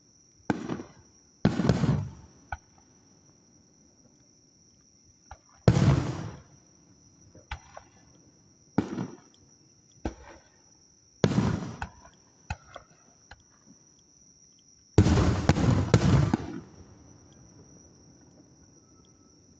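Aerial fireworks shells bursting, about half a dozen booms a few seconds apart with a quick run of bursts about fifteen seconds in, the loudest. A steady high chirring of insects goes on underneath.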